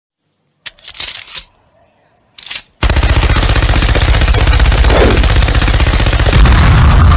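Two short noises, then from about three seconds in a loud, continuous, very fast rattle.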